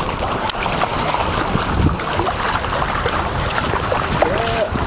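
Wind buffeting the microphone over the rush and splash of water along a sailing catamaran's hulls, a steady noise throughout.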